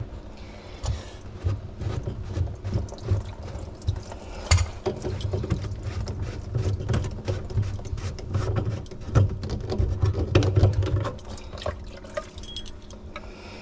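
Hands working a white PVC sink P-trap loose: irregular knocks, clicks and scrapes of plastic slip nuts and pipe. Water from the trap pours and drips into a plastic tub as the trap comes off.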